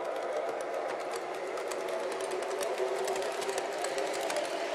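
MTH RailKing O scale R-21 Redbird subway train set running along the track: a steady hum with quick, irregular clicking from the wheels over the rails.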